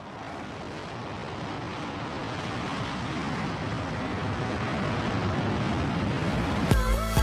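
A steady rushing noise, like a rocket-launch or jet sound effect, that slowly grows louder. Music cuts in near the end.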